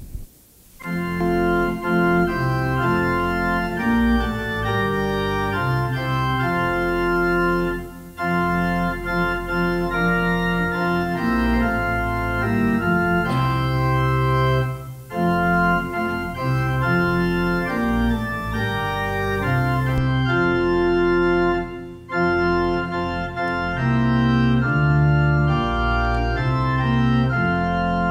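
Organ playing a hymn tune in held chords, phrase by phrase, with brief breaks between phrases about every seven seconds.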